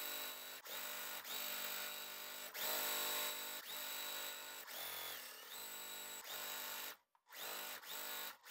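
Juki TL-2200QVP Mini sewing machine stitching quilt block pieces together, its motor running in short runs with brief pauses between them as the fabric is guided. It stops about seven seconds in, then runs briefly once more near the end.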